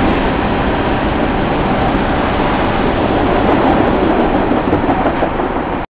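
Tail end of a CSX freight train of empty open-top hopper cars rolling away under the bridge: a steady rumble and rattle of wheels on rail that cuts off suddenly near the end.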